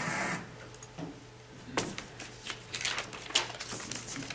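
Scattered light clicks and knocks in a quiet room. A loud, steady rushing noise cuts off about half a second in.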